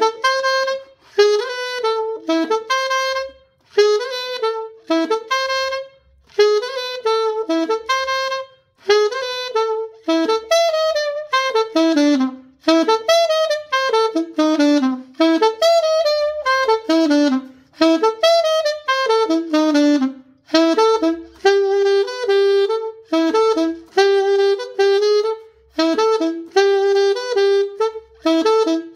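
Solo saxophone playing a fast huapango melody in short repeated phrases of quick notes, with brief breaths between phrases; near the end it repeats one note in quick strokes.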